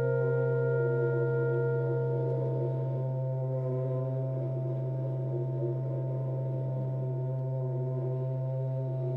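Ambient drone music: a constant low hum with several held ringing tones above it, one high tone dropping out about two seconds in.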